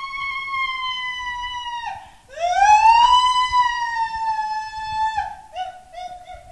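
A woman wailing in long, high-pitched cries, each swooping up, held for two or three seconds and then dropping away; the loudest comes a little after two seconds in, and a shorter, lower cry follows near the end.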